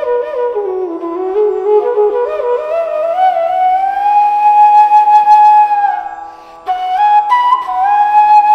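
Bansuri (Indian bamboo flute) playing a slow melody with wavering ornamented turns, rising to a long held high note, then a short break and a new phrase near the end.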